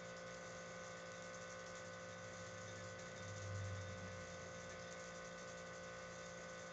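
Steady electrical hum with a faint hiss from the running high-voltage ion engine setup, with a brief low swell about three seconds in.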